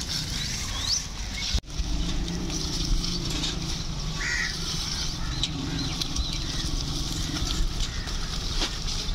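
Outdoor ambience: steady wind rumble on the microphone with a few scattered bird chirps, broken by a brief dropout about one and a half seconds in.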